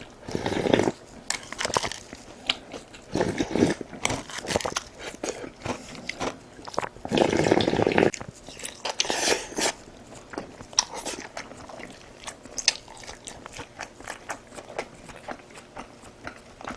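A person eating close to the microphone: biting and chewing with crisp, crunchy clicks throughout, and three louder stretches of about a second each, near the start, about three and a half seconds in, and about seven seconds in.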